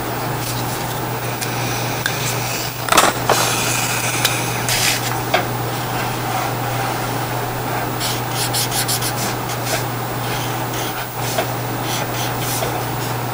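Felt-tip marker rubbing and scratching across paper in short strokes, with a quick back-and-forth run of strokes about eight seconds in. There is a sharp click about three seconds in, over a steady background hum.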